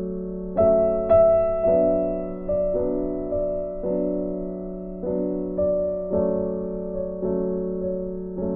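Background music: slow electric piano chords with a steady low sustained note beneath.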